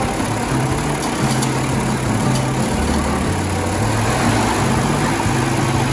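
John Deere 4020 tractor's six-cylinder engine running steadily at idle.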